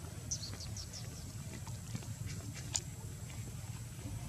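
Faint high-pitched animal calls: a quick run of about five short falling chirps about half a second in, then scattered faint squeaks and one sharp click near three seconds, over a steady low rumble.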